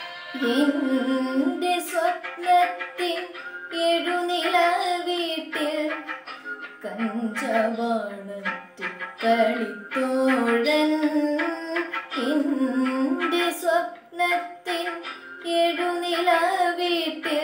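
A girl singing a solo song in a clear, wavering melody, phrase after phrase, over steady instrumental accompaniment.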